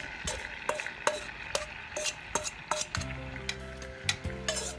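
Metal tongs clicking and scraping against a stainless steel bowl as fish marinade is scraped into a hot pot, over a steady sizzle of catfish frying in oil and caramel.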